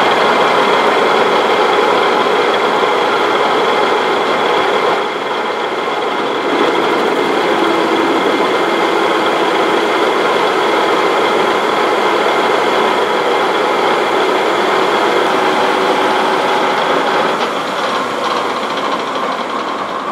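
Engine lathe running with its spindle on freshly installed bearings, the headstock gearing giving a steady whine while the tool takes a light turning cut along a steel bar. The level dips briefly about five seconds in and eases off toward the end.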